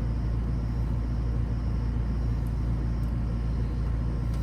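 Neighbouring central air-conditioning condensing unit running, a steady low hum and rumble.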